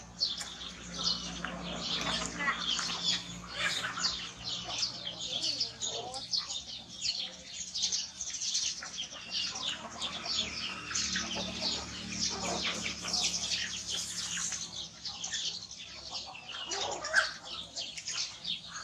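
A busy, continuous chorus of many small birds chirping rapidly.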